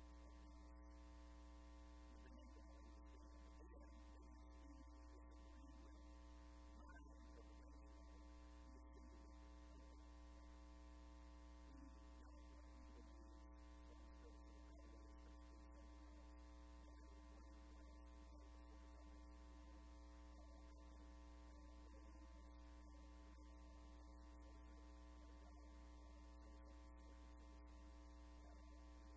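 Near silence: a steady low electrical hum with faint steady tones above it.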